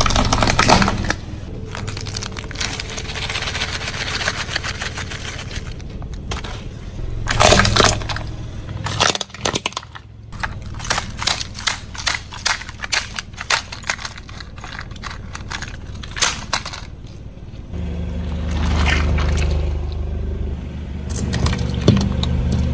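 A car tyre rolling over and crushing objects: loud crunching bursts, then a rapid run of sharp cracks and snaps. The car's engine hums steadily, coming up louder in the last few seconds.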